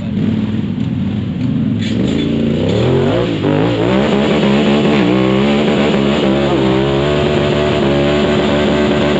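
Side-by-side UTV engine revving up a couple of seconds in and held at high revs, its pitch wavering up and down.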